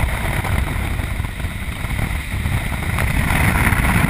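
Airflow rushing past a glider's cockpit in flight, a loud, steady rumbling hiss of wind on the microphone.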